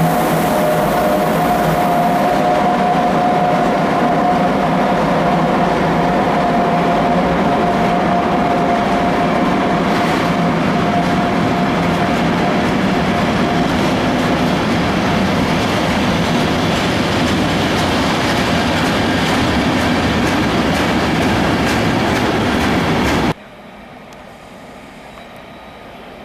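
Freight train passing close by: several ÖBB electric locomotives, then tank and covered wagons rolling past with steady, loud wheel-and-rail noise and a held whine during the first half. About 23 seconds in the sound drops abruptly to a much quieter background.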